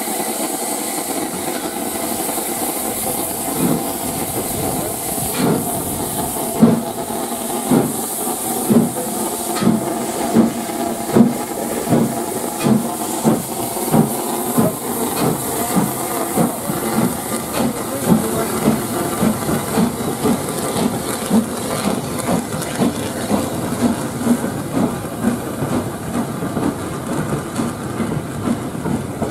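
Southern Railway S15 class 4-6-0 steam locomotive No. 847 starting a train: steam hissing from the open cylinder drain cocks, then exhaust beats that start about five seconds in and come steadily faster as it gathers speed.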